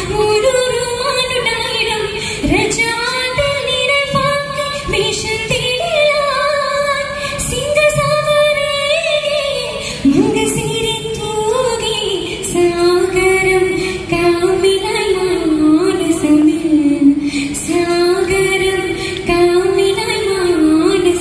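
A girl singing a Mappilappattu, a Kerala Muslim song, solo into a microphone. Her long held notes waver and glide between pitches.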